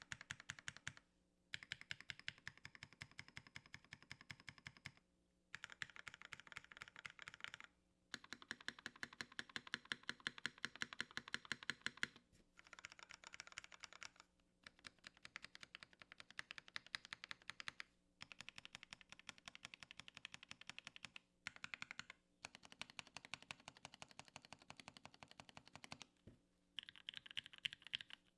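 Fast typing on a Tiger mechanical keyboard with Gateron Ink Red linear switches on an aluminum plate and CRP keycaps. Rapid keystrokes come in runs of a few seconds, broken by short pauses.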